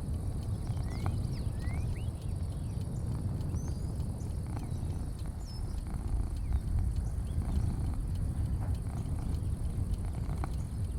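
Outdoor porch ambience: a steady low rumble with faint, scattered short bird chirps, mostly in the first few seconds, and occasional light clicks.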